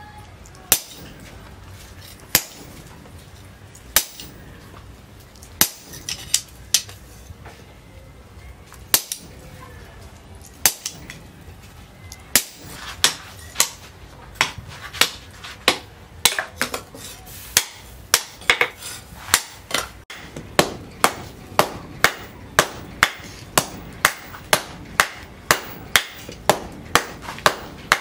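Hand hammer striking hot leaf-spring steel on a steel anvil, forging the billhook blade. The blows are sharp and come a second or more apart at first, then quicken to a steady rhythm of about two a second in the second half.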